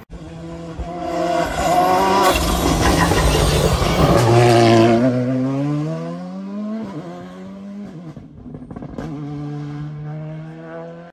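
Rally car engine at full throttle going past, loud, its revs climbing and dropping several times, then settling to a steady drone near the end. A couple of sharp cracks cut through it.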